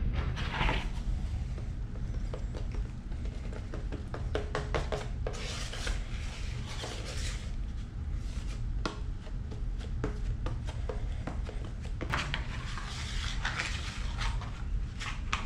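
Bondo body filler being mixed on a mixing board: a hand tool scraping and smearing the filler in irregular short strokes, with light clicks and taps.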